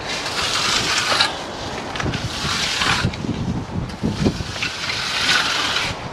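Steel finishing trowel being swept across the wet surface of a freshly poured concrete slab, in three long strokes of about a second or more each.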